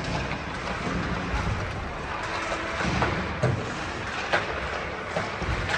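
Ice hockey practice: skates scraping on the ice, with sharp clacks of sticks and pucks over a steady background noise. The two loudest clacks come about three and a half and four and a half seconds in, ringing in the large arena.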